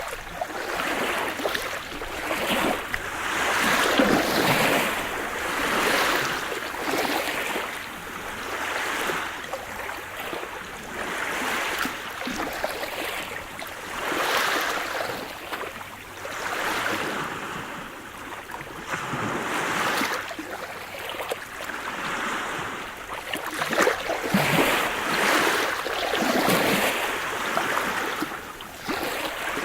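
Sea surf: waves breaking and washing in, the rushing noise swelling and ebbing in surges every few seconds.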